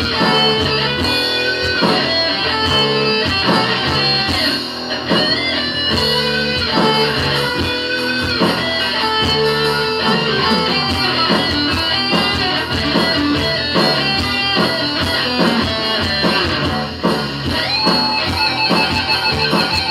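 Electric guitar played continuously: a steady stream of notes, some bent up and down in pitch.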